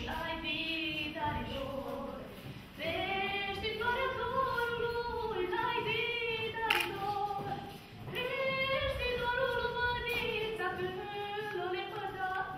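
A group of young voices singing a Moldovan folk song unaccompanied, in long held phrases with short breaths about three and eight seconds in.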